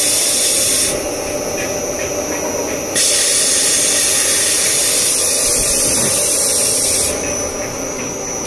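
Grid cloth roll-cutting machine running, its spindle turning the mesh roll while a rotating circular blade cuts through it. A steady, high hiss rides over the machine's running noise; it drops away about a second in, comes back about three seconds in, and drops again about seven seconds in.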